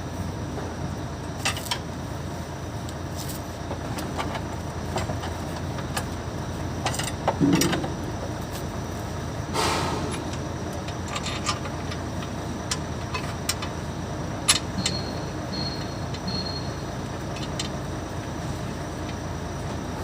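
Scattered metallic clicks and clinks of hand tools working on a car's clutch assembly during pressure-plate removal, with a heavier clunk about seven and a half seconds in. A steady low rumble runs underneath.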